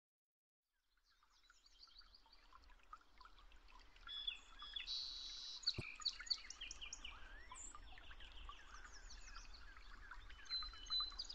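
A chorus of many birds chirping and singing at once, fading in from silence after about a second and slowly getting louder, over a faint low rumble.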